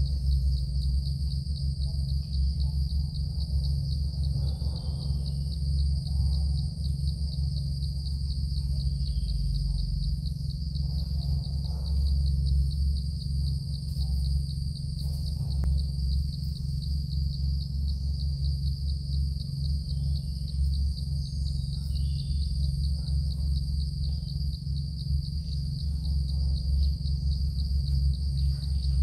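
Insects trilling steadily, a fast, even high-pitched pulsing, over a steady low drone that is the loudest sound, with a few faint bird chirps.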